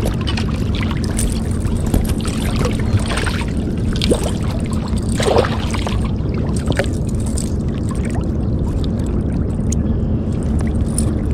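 Steady low rumble with moving water splashing and sloshing at irregular moments, most strongly about five seconds in.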